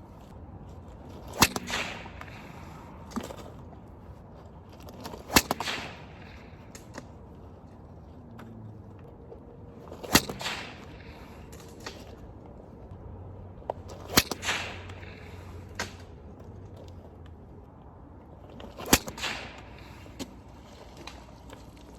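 Kevlar stone sling cracking at release, a sharp whip-like crack about every four to five seconds, five times.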